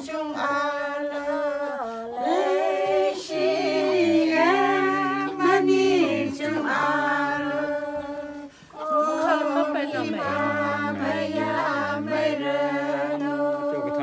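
A group of women singing unaccompanied together, in long held notes that step up and down in pitch. A lower voice joins in for parts, and the singing breaks off briefly about eight and a half seconds in.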